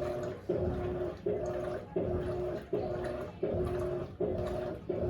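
Electrolux LAC16 top-load washing machine agitating, driven by a swapped-in 1/4 hp WEG motor from an LT13B. The motor hums in short, even strokes about every three-quarters of a second, each starting sharply and fading as the agitator reverses.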